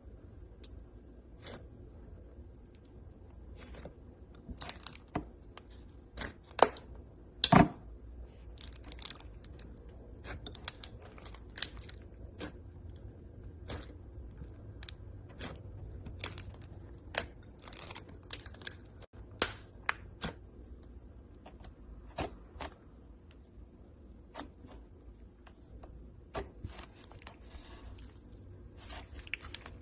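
Clay-mixed slime being worked by hand, giving irregular sharp crackles and pops. The loudest pops come about seven seconds in.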